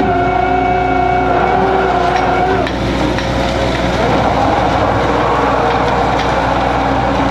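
A purse seiner's deck machinery runs over a steady low engine drone, with a whine that drops away about two and a half seconds in. From about four seconds a loud rushing, splashing noise takes over as a net-load of tuna pours and thrashes onto the deck.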